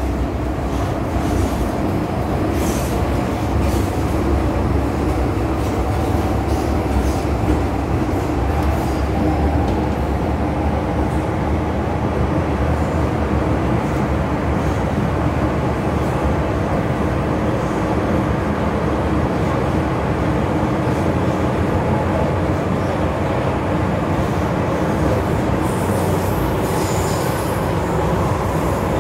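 MTR M-Train electric multiple unit heard from inside the passenger car while running between stations: steady wheel-on-rail and motor noise with a hum of several steady tones. Brief high wheel squeals come near the end.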